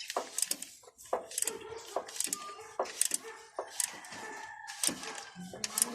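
A rooster crowing in the background, one long held call about three seconds in that slowly falls in pitch, over repeated sharp clicks and knocks.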